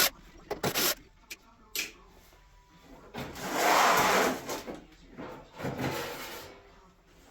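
Handling noises: a few sharp knocks, then a long rubbing scrape about three to five seconds in and a shorter one near six seconds.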